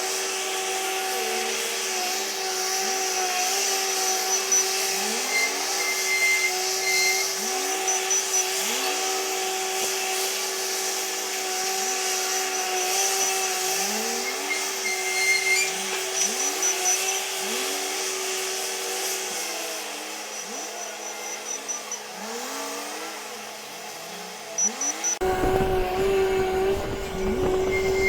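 Komatsu WA500 wheel loader's diesel engine running under work, with a steady drone and repeated short rising revs. Short runs of high beeping come and go.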